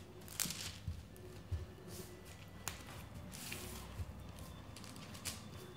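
Hands pressing and shaping a sticky honey-and-nut mixture on parchment paper: faint rustling and crinkling of the paper with soft squishing, broken by a few brief, sharper rustles.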